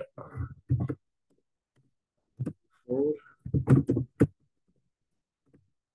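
Short bits of a man's low, indistinct speech: one burst just after the start and a cluster of syllables around the middle, with silence between.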